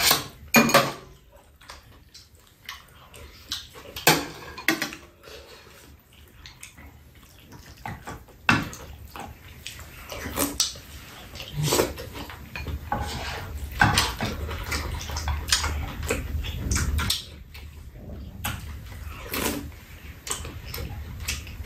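People eating: spoons tapping and scraping a metal frying pan and bowls in scattered clicks, with chewing and slurping.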